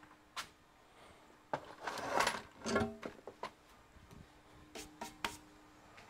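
Small objects and tools handled on a workbench: a few sharp clicks and knocks, with a busier clatter about two seconds in, over a faint steady hum.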